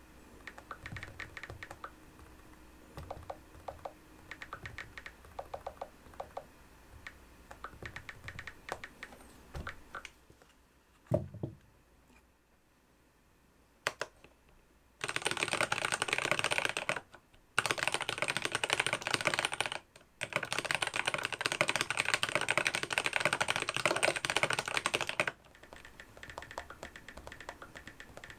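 Typing on a keyboard: scattered runs of light keystrokes, a single heavier knock about 11 seconds in, then a much louder, very fast, dense run of key presses lasting about ten seconds with two short breaks, easing back to lighter keystrokes near the end.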